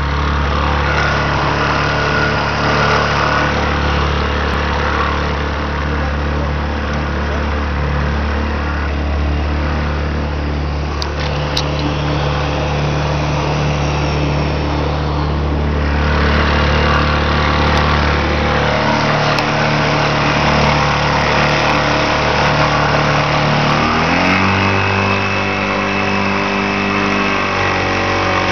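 Old 60 hp Mariner outboard motor running steadily with the boat under way, over a haze of rushing water. About three-quarters of the way through, the engine's pitch rises sharply as it speeds up and the boat pulls a churning wake.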